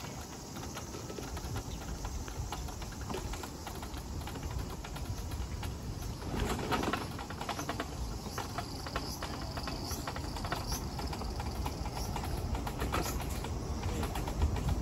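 Outdoor ambience with birds calling over a steady, dense rattle of small clicks. A thin, high call holds for about two seconds just past the middle.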